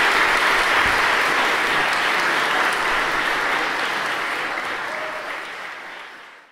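A crowd of guests applauding, with some voices among the clapping, fading out over the last few seconds.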